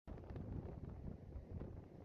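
Faint wind buffeting the microphone, a low rumble.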